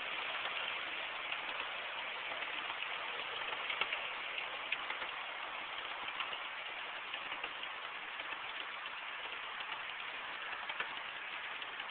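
Model freight train rolling past, a steady rushing of wheels on the rails with many small scattered clicks.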